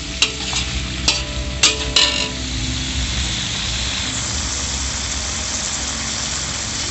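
Chopped tomatoes, chillies, shallots and garlic sizzling in hot oil in a wok. A metal spatula scrapes and clinks against the pan several times in the first two seconds, then the sizzle carries on steadily.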